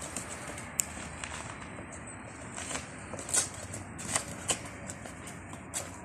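Scattered clicks and scuffs of a Doberman puppy's claws and paws and a child's shoes on concrete as the puppy jumps up and runs about.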